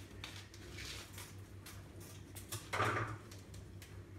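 A foil yeast sachet being handled and opened by hand: small clicks and crinkles, with one louder rustle about three seconds in, over a faint steady low hum.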